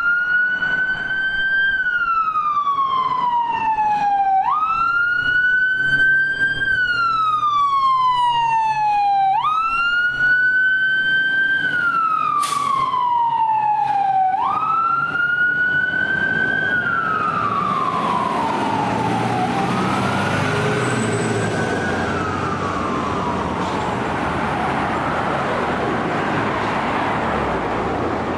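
Fire engine siren wailing in repeated cycles, about one every five seconds: each climbs quickly, then falls slowly over about three seconds. After four strong cycles the siren fades as the truck moves away, leaving engine and traffic noise.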